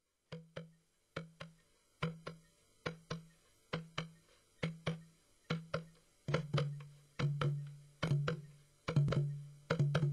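A steady drum rhythm: sharp knocking strikes, mostly in pairs, each with a short low ringing tone, growing louder and busier about six seconds in.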